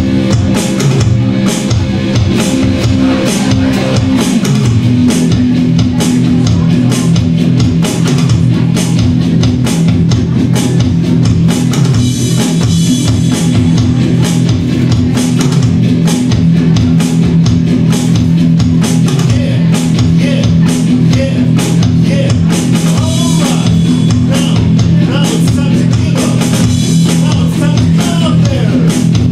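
A live techno-pop band playing: a steady drum-kit beat under electric guitar and synth holding sustained chords. The chord shifts about four seconds in.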